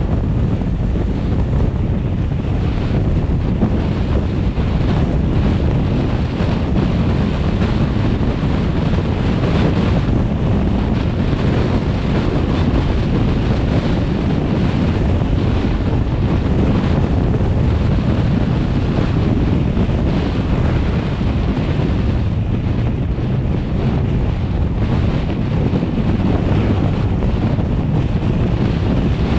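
Steady wind rushing over the microphone of a vehicle driving at speed on a highway, with the low rumble of the road mixed in.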